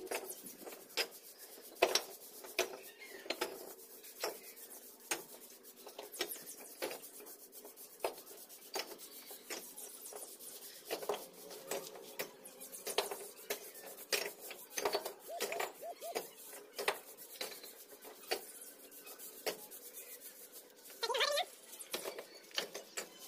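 Bricklayer's steel trowel scraping and tapping against brick and mortar in short, irregular strokes, with a brief animal call near the end.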